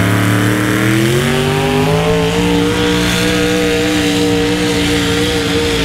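Unlimited super stock pulling tractor's engine running loud at high revs. Its pitch climbs for about the first two seconds, then holds steady.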